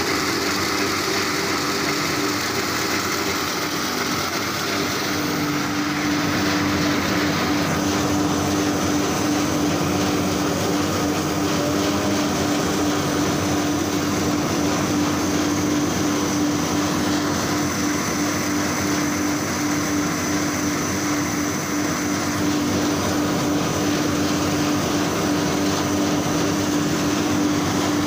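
Pillow-shaped snack forming and cutting machinery running steadily, its motors and rollers making a continuous mechanical drone. A steady hum grows stronger about five seconds in.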